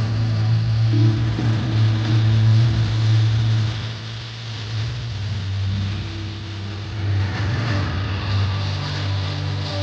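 Loud fireworks show soundtrack from the park's speakers, with deep sustained bass notes and a haze of outdoor noise; the held notes shift near the end.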